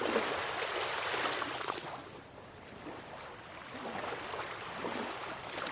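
Ocean surf, a rushing wash of water that swells, eases and swells again.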